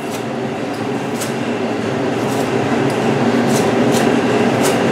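Steady hum and whir of a walk-in cooler's refrigeration unit running, slowly growing a little louder. A few faint, sharp ticks come through it as a knife works at the deer hide.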